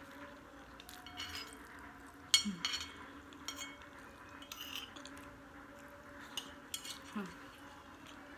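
A metal spoon scraping and clinking against a plate as the last noodles are scooped up: a string of short sharp clinks, the loudest about two seconds in.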